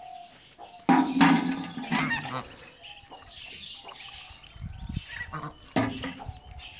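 Domestic white goose honking: a run of loud, harsh honks starting about a second in, then another short honk near the end.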